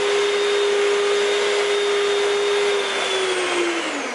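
Electric stand mixer motor running steadily with a whine as it beats butter. About three seconds in it is switched off, and the motor winds down, falling in pitch and fading.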